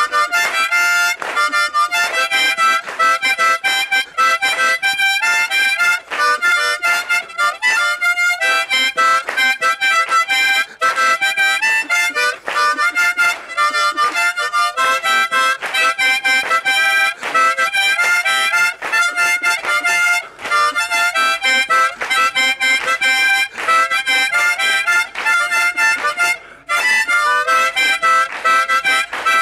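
Harmonica played in a fast, continuous melody of quickly changing notes, with a couple of very brief breaks.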